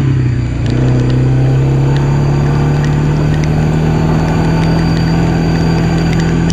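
ATV engine running steadily as it is ridden along a dirt trail. The engine note dips briefly about half a second in, then picks up again.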